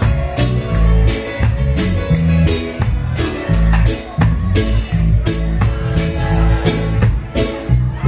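Live reggae band playing with a steady beat: drum kit, a heavy bass line and electric guitar.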